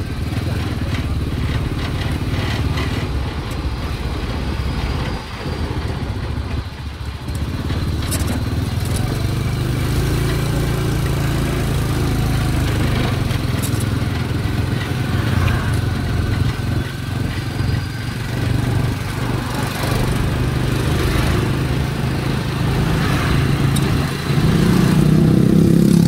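Small motorcycle engine running steadily while riding along a town street, its note getting louder and a little higher near the end.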